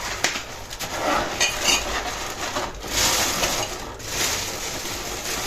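Shards of a broken drinking glass clinking and scraping as they are handled and wrapped up for throwing away, with rustling noise in between.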